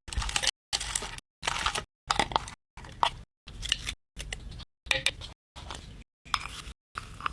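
Slime being squeezed and poked, giving sticky clicks, pops and crackles in short bursts. The bursts are cut by brief dead gaps about twice a second.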